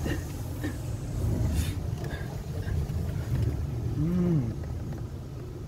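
High-pressure car-wash wand spraying water onto the car, heard from inside the cabin as a steady low rumbling hiss of water drumming on the body and glass. About four seconds in, a short voice-like sound rises and falls in pitch.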